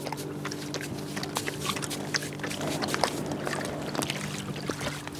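Water sloshing and trickling, with many small splashes and clicks, over a steady low motor hum.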